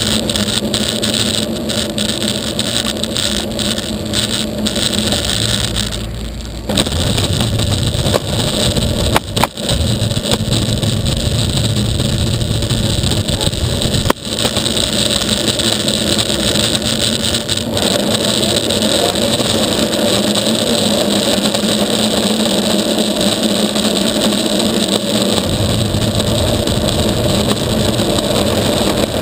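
Longboard wheels rolling fast over asphalt, a steady rumble with wind on the microphone. The road rumble deepens about a third of the way in, and there are sharp knocks about nine and fourteen seconds in.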